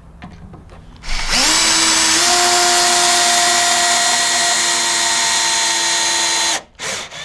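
Bosch 12V multi-head drill/driver (GSR12V-140FC) driving a long wood screw into lumber. The motor whine starts about a second in, rises quickly to speed, runs steadily for about five seconds and cuts off suddenly as the screw seats.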